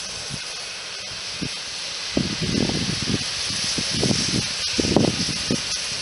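Steam hissing steadily from the SNCF 140 C 2-8-0 steam locomotive 140C314, with a few irregular low puffs about two, four and five seconds in.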